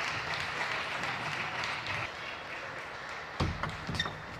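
Arena crowd applause and murmur that dies down, then near the end a few sharp clicks of a table tennis ball striking the table and bat.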